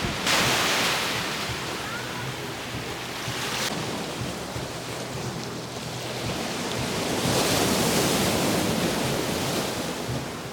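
Sea surf: waves breaking and washing up the shore in two surges of hissing water. The first surge cuts off sharply a few seconds in, and the second builds and fades in the second half.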